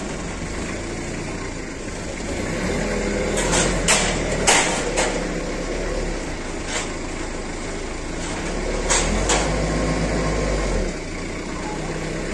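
Forklift engine running steadily, growing louder twice as the hydraulic controls are worked, with several sharp metallic clanks around four seconds in and again near nine seconds.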